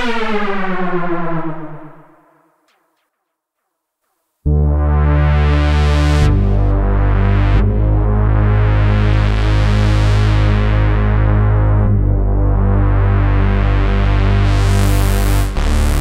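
TAL-J-8 software synthesizer, an emulation of the Roland Jupiter-8, playing presets. A held patch fades out over the first two seconds, and after a short silence the 'Cinematic Freedom' patch starts about four and a half seconds in: steady low bass notes under a quick repeating pattern of higher notes. Its filter cutoff sweeps, so the sound turns darker around twelve seconds in and brighter again near the end.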